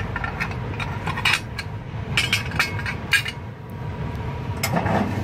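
Steel burn pot plates of a biomass furnace clinking and scraping against each other and the metal housing as they are handled and lifted out, with about five sharp clinks over a steady low hum.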